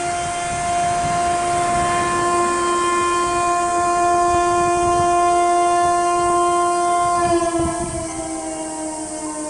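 Motor siren of a municipal disaster-warning system sounding one steady tone, then beginning to wind down about seven seconds in, its pitch falling slowly.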